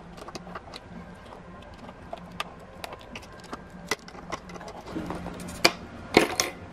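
Small flathead screwdriver prying at the metal tabs of a headlight's bulb-retaining clip on its plastic surround: a run of light metal clicks and scrapes, with two louder clicks near the end.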